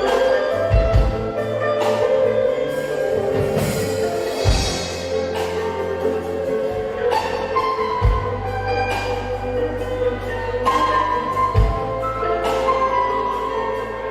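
Instrumental band music: plucked sasando (the palm-leaf tube zither of Rote) over a drum kit, bass guitar and guitar, with kick drum thumps and cymbal strokes every few seconds.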